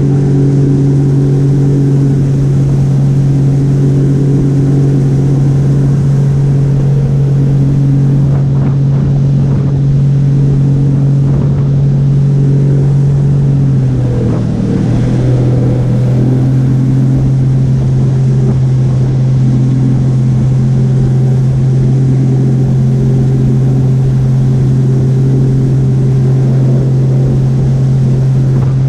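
Jet ski engine running loud and steady at speed, its pitch dipping briefly about halfway through and then coming back up.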